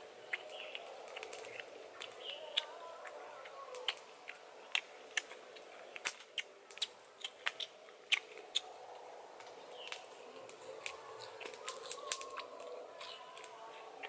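Close-up eating sounds of someone eating cooked fish with his fingers: irregular sharp wet clicks of lips smacking and chewing, coming in quick runs, over a faint steady background.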